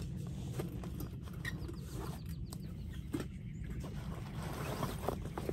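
Rustling and crinkling of a roll-top dry bag being opened and rummaged, with scattered small clicks over a steady low rumble.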